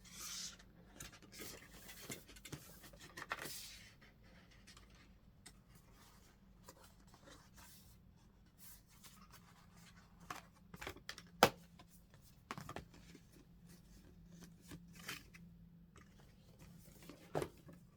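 Cardboard toy packaging being opened by hand: scattered rustling, scraping and tearing, with short clicks and one sharp tap about eleven seconds in.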